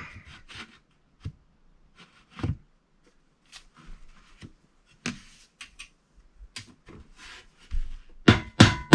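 Hammer driving nails by hand: a few scattered light knocks, then a quick run of hard strikes, about three a second, near the end.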